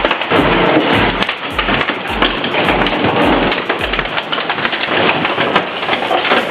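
Industrial shredder grinding and crunching material, a dense crackling din. A steady low beat of background music, about two thuds a second, runs underneath.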